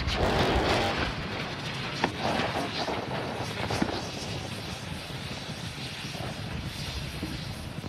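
Aftermath of the Starship SN8 prototype exploding on landing: the roar of the fireball and burning wreckage slowly fading, broken by a few sharp cracks, the loudest about two seconds in.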